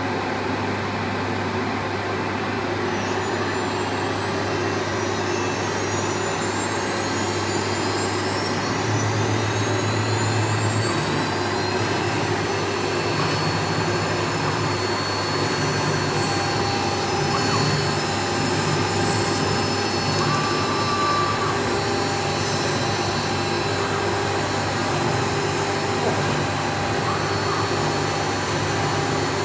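CNC router spindle running with a high whine that rises over the first ten seconds or so and then holds steady as the bit cuts around the printed lettering on a white board, over a constant droning machine hum.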